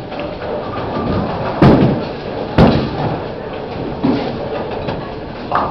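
Bowling alley din: the steady rumble of bowling balls rolling down the lanes, broken by two loud crashes about a second apart and a smaller knock later.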